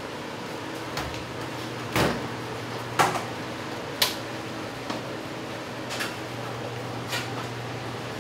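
A steady low machine hum with a string of sharp knocks about a second apart, the loudest two and three seconds in.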